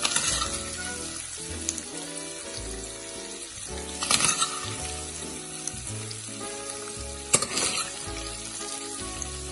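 Minced meat sizzling in a hot frying pan while a spoon scoops and scrapes it out, with louder scrapes about four seconds in and twice more a few seconds later. Soft background music plays underneath.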